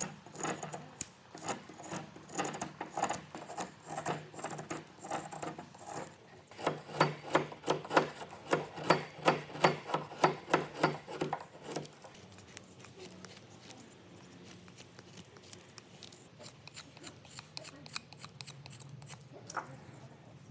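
Korean whittling knife shaving a softwood block round: a quick knock, then a run of short scraping cuts that come about three a second at their loudest. The strokes stop about twelve seconds in, leaving only faint handling sounds.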